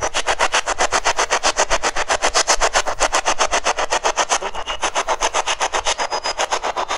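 Spirit box radio scanner sweeping through stations: a steady, rapid chopping hiss of static at about ten cuts a second.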